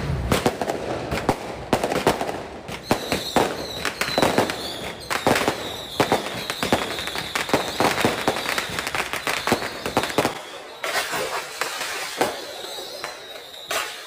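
Firecrackers going off in irregular cracks and pops. A steady high tone sounds behind them from about three seconds in.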